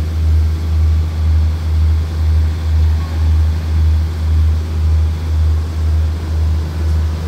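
Diesel engine of a standing passenger train idling: a steady low throb whose loudness pulses evenly about twice a second.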